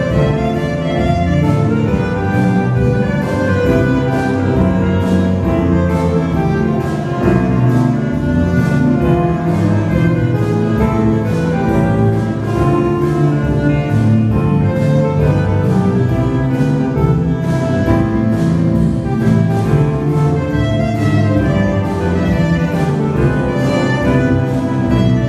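A big band playing live: saxophones, clarinet, trumpets and trombones sounding together over a drum kit and bass with a steady beat.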